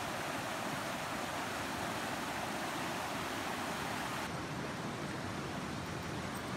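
Steady rushing of a fast mountain creek tumbling over rocks in white water. About four seconds in, the rush turns a little duller.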